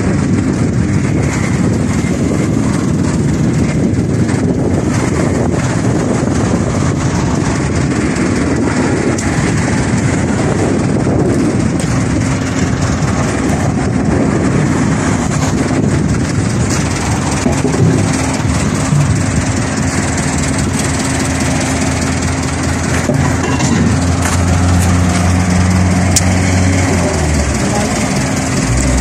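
Diesel engine of a horizontal directional drilling rig running steadily, with wind rushing on the microphone; a steady low engine hum becomes clearer in the second half.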